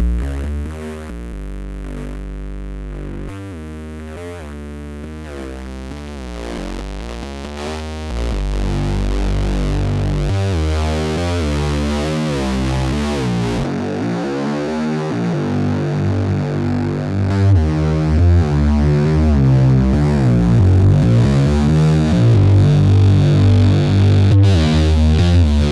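Korg Monologue synthesizer playing a repeating bass-line sequence through a Boss distortion pedal, a gritty, harmonic-rich tone. It gets louder about eight seconds in and brighter about halfway through.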